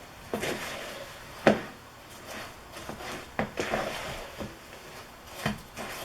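A spatula stirring chow mein noodles and marshmallows through a sticky peanut butter and butterscotch mixture in a bowl: scraping and rustling with irregular knocks of the spatula against the bowl, the loudest about a second and a half in.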